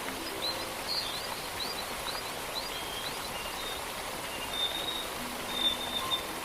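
Steady rushing of distant falling water under birdsong: a run of quick rising chirps, about three a second, in the first few seconds, then a few longer high whistles near the end. Soft, sparse music notes sound at the start and again near the end.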